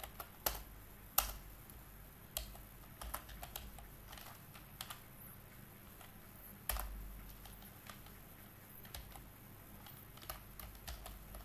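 Computer keyboard typing: scattered, irregular keystrokes with pauses between them.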